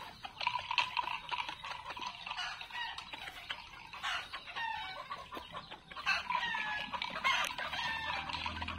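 Domestic chickens clucking and calling: many short calls, some sliding up or down in pitch.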